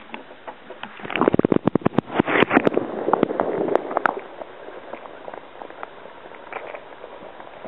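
Spinning reel on an ultralight trout rod clicking in a fast run of sharp ticks for about a second and a half, with a few scattered clicks after it, while a fish is on the line.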